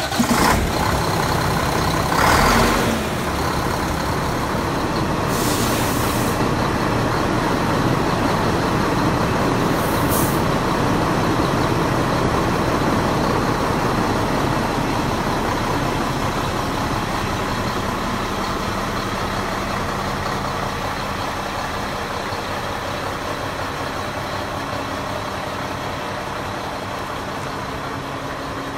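Heavy diesel engine of a Mack semi-truck idling steadily, with a brief louder surge about two seconds in. Two short hisses of compressed air come about five and ten seconds in.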